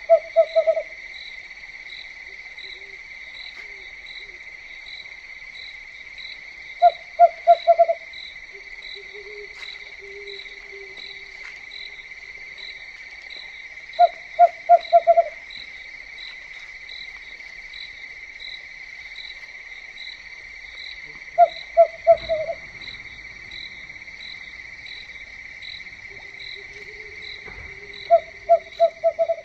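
A steady, high night-insect chorus, one insect pulsing about twice a second, over which a hooting call of four or five quick notes repeats about every seven seconds, the loudest sound here.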